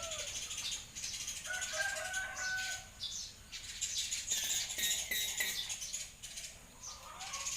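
Hill myna giving a held whistled note about a second and a half in, then a rustle of flapping wings.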